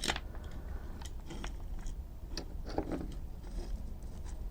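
Small plastic parts of a toy RC truck being handled and popped out, giving scattered light clicks and taps.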